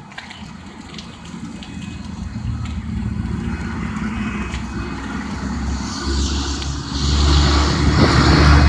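A motor vehicle approaching, its low engine rumble and road noise growing steadily louder and loudest near the end.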